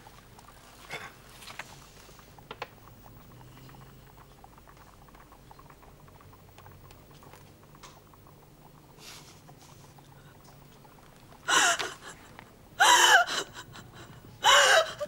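A young woman bursting into sobbing cries: three loud wailing sobs near the end, after a long hushed stretch of faint room sound.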